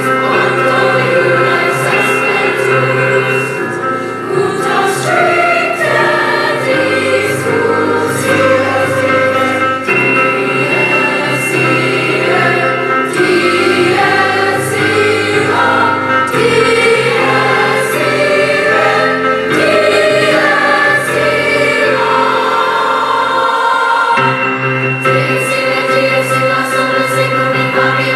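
Mixed chorus of young teenage voices singing loudly together, with grand piano accompaniment.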